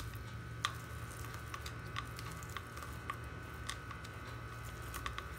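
Soft boiled potato being rubbed across a small flat metal hand grater, a faint squishy scraping broken by a few light, irregular clicks.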